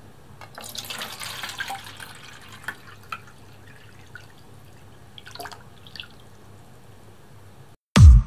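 Water poured into a small clear acrylic cube tank: a splashing pour for about two seconds, then scattered drips and small plops. Near the end a loud, deep bass hit starts electronic music.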